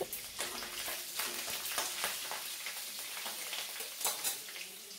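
Cumin seeds and chopped green chillies sizzling and crackling in hot oil in a kadai, with a few louder pops.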